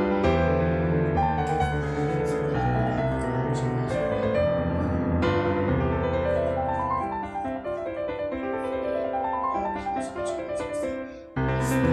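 Background piano music, with rising and falling runs of notes in its middle part and a brief drop in loudness near the end.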